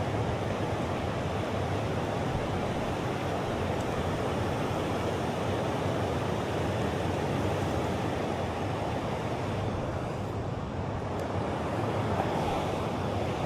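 Steady rushing of high water pouring over a river spillway.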